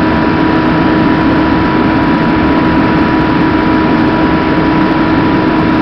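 An engine running steadily: a constant, unchanging drone with a couple of held steady tones in it.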